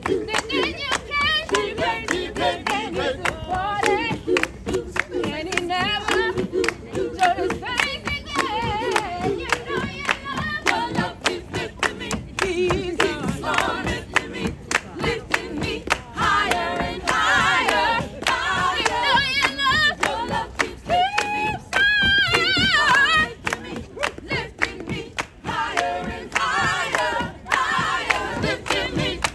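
Gospel choir singing with steady hand clapping on the beat, a woman's lead voice singing high, wavering runs over the group.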